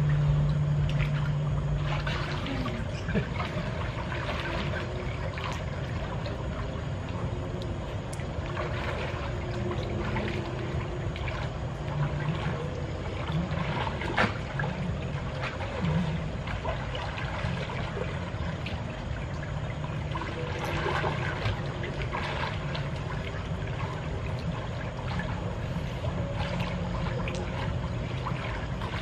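Swimming-pool water splashing and lapping as people move and paddle through it, a steady wash of water with small splashes now and then.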